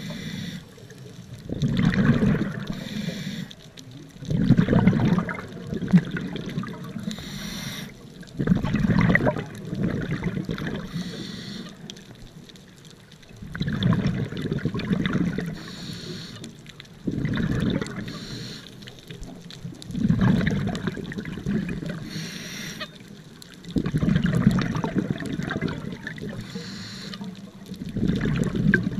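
Scuba diver breathing through a regulator underwater: the bubbles of each exhalation burble out about every three to four seconds, with a short hiss of inhalation between them.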